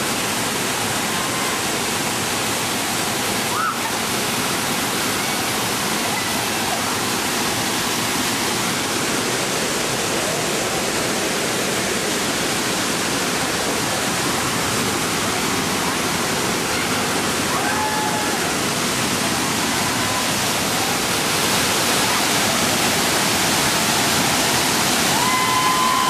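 Steady rushing roar of a large waterfall, growing a little louder in the last few seconds.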